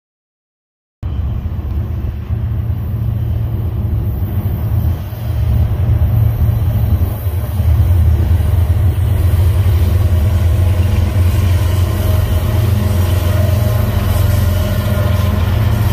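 Union Pacific diesel locomotives approaching and passing at the head of a westbound intermodal train: a loud, steady low engine rumble. It starts about a second in and grows louder midway as the locomotives draw level.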